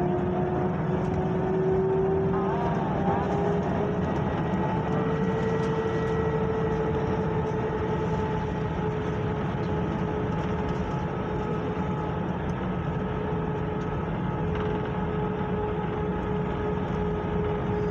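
Steady airliner cabin noise: the hum of the engines and air system with a steady whine, rising slightly in pitch in the first few seconds.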